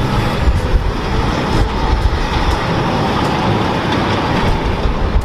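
Heavy truck-and-trailer livestock unit driving past: steady engine and tyre rumble.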